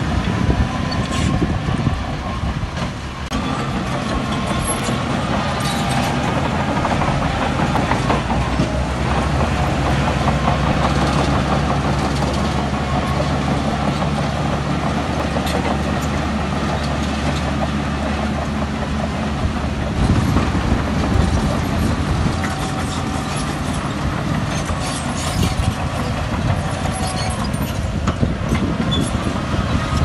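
Bulldozer's diesel engine running, with the metallic clanking and squeaking of its steel crawler tracks. A steady low engine drone holds through the middle and breaks up about two-thirds of the way in.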